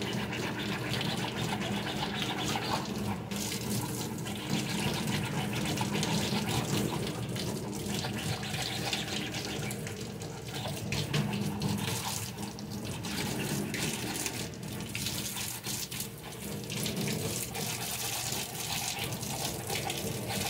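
Kitchen tap running into a stainless steel sink. A hard plastic 3D-printed box is being scrubbed with a scrubber under the stream, and the rubbing comes and goes with the strokes.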